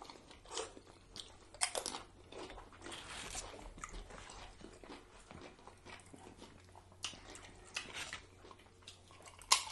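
Tortilla chips being bitten and chewed close to the microphone: a string of crisp crunches a second or two apart, with quieter chewing between them.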